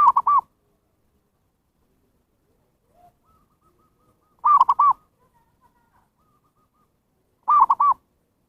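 Zebra dove (perkutut) cooing: three short bursts of three quick, clipped coos each, spaced three to four seconds apart, with fainter coos in between.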